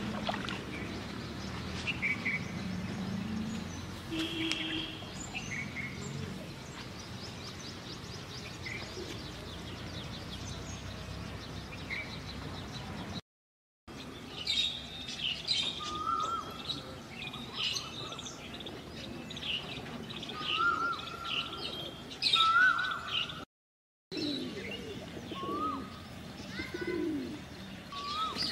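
Birds chirping and calling, many short notes, with a low steady rumble under them for the first few seconds. The sound drops out completely twice, briefly.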